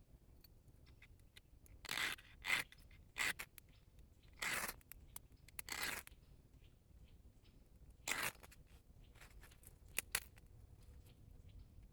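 A series of short, irregular scraping strokes, about ten of them, with uneven gaps between them.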